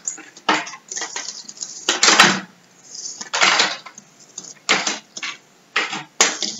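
Small number tiles clacking together as they are swept off a whiteboard by hand and gathered up, in a series of irregular clatters.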